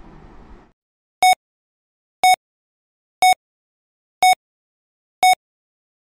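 Heart-monitor style beep sound effect: five short, identical electronic beeps, one a second, in dead silence, after a faint hiss that cuts off just under a second in.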